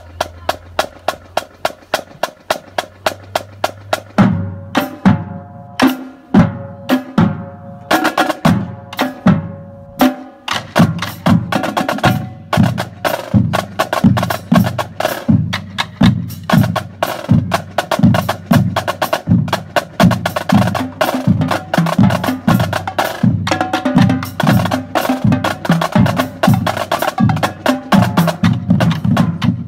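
A marching drumline of snare and bass drums playing a cadence. It opens with a few seconds of quieter sharp, evenly spaced clicks, and the full drums come in loud about four seconds in with dense strokes to the end.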